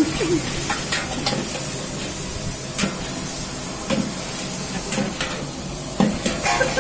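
Bulk cooking over a large burner: a steady hiss with several short metal clanks of utensils against a big cooking pot.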